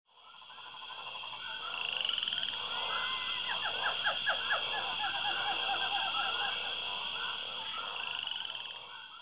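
A chorus of outdoor animal calls that fades in and out: a steady high chirring over repeated short, rapidly pulsed calls that are loudest in the middle.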